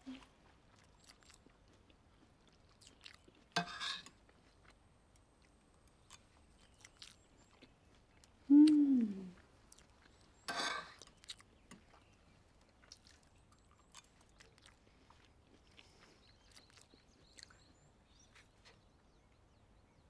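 A woman eating soft porridge from a spoon: small clicks of the spoon against the bowl and mouth sounds of slurping and lip-smacking. About eight and a half seconds in comes a loud appreciative hum that falls in pitch, followed by a breathy slurp.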